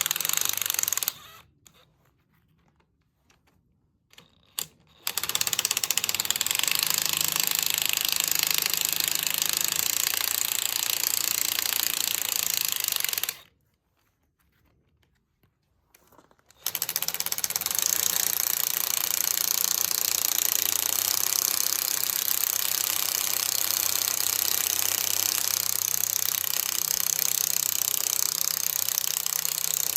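A power tool with a socket running steadily, spinning loosened fine-thread cylinder head nuts off their studs. It stops twice for a few seconds, about a second in and again near the middle, as the tool moves between nuts.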